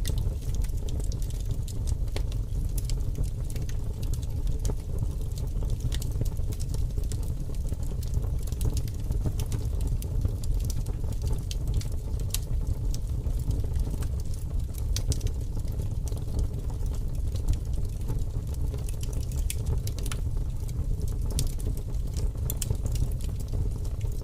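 Wood fire burning in a fireplace, crackling with frequent small sharp pops over a steady low rumble.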